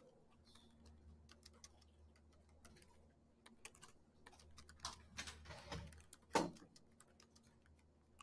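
Faint clicking of computer keyboard keys as someone types, with a brief louder sound about six and a half seconds in.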